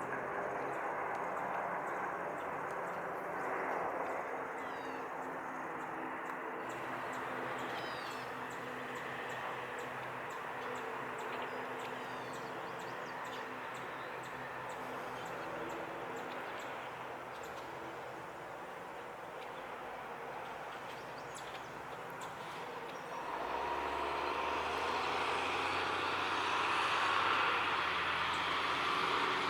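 Approaching freight train: a steady distant rumble, then a diesel locomotive's low engine drone that grows louder about three-quarters of the way through. Faint bird chirps sound now and then.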